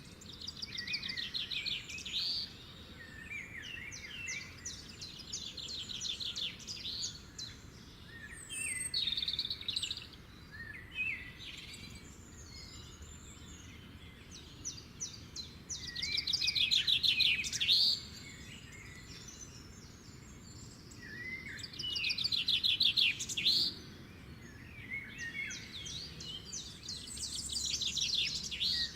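Songbirds singing: repeated phrases of rapid trilled and chirping notes, each about two seconds long, over a low, steady background hiss.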